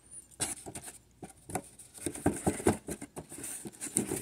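A cardboard model-kit box being handled, with loose plastic kit parts inside: irregular light clicks, knocks and rustling as the box is closed up and moved.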